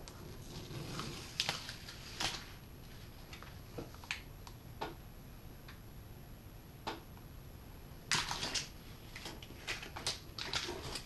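Scattered light clicks and taps, with a short flurry about eight seconds in, from handling the reassembled tablet during power-up.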